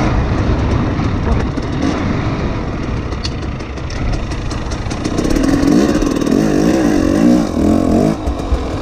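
KTM 300 two-stroke dirt bike engine running under a heavy rumble of wind on the microphone, then revving up and down several times over the last few seconds as the rider works the throttle.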